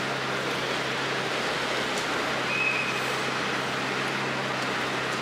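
Steady hiss of rain falling on wet pavement, with a steady low hum underneath.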